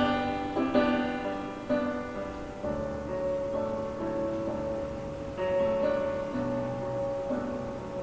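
Slow, gentle solo piano music: chords struck about once a second and left to fade, with a longer held chord in the middle.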